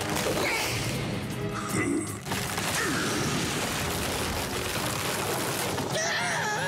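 Cartoon soundtrack: background music with sound effects, and a short wavering vocal sound near the end.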